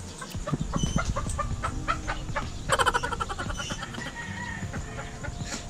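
Chickens clucking, with one short, loud squawk about three seconds in, over scattered small clicks and taps.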